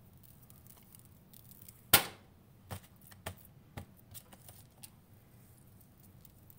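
Faint ticks of salt being shaken from a glass shaker, then a sharp click about two seconds in as the shaker is set down on the countertop. Several lighter taps and clicks follow as the steak is handled on a paper plate.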